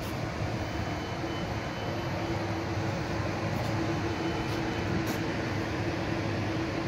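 Steady mechanical drone of a cruise ship's machinery: an even rushing noise with a constant low hum and a steady tone above it.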